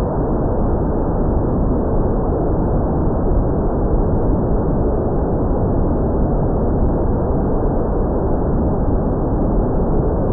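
Loud, steady rushing wind noise on the microphone, with no distinct propeller or motor whine standing out.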